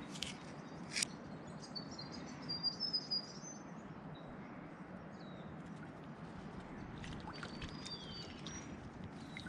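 Small birds chirping faintly in short high runs, a few seconds in and again near the end, over a quiet outdoor hush. There are two sharp clicks in the first second.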